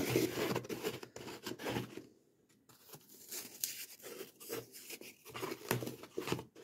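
Offcuts of green floral foam being squeezed and pressed by hand into a hollow plastic pumpkin, giving irregular crunching and scraping, with a short pause about two seconds in.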